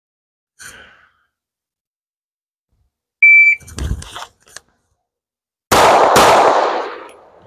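A shot timer gives one short beep. A few seconds later a Glock 19X 9mm pistol fires a double tap, two shots about half a second apart, the sound trailing off after the second.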